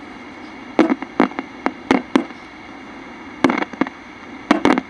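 Crackling and popping from a signal tracer's speaker as its probe touches the transformer leads of a transistor radio, in four short clusters over a steady hum. No station audio comes through: the stage shows no signal.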